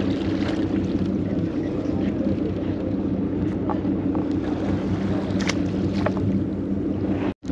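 Charter boat's engine running steadily, a low even hum, with a few faint clicks from handling tackle. The sound drops out for a moment near the end.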